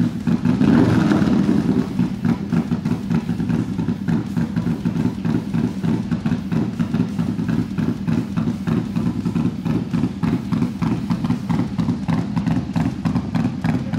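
2019 Harley-Davidson FXDRS's Milwaukee-Eight V-twin, built to a Moonshine Horsepower 139 Nightmare spec and breathing through a short two-into-one exhaust, running louder for about the first two seconds and then settling to a steady, pulsing idle.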